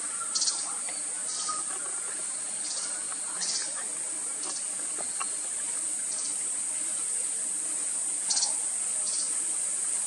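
Rainforest insects: a steady, high-pitched buzz, with short raspy chirp bursts every second or two, the loudest about half a second in and again near the end.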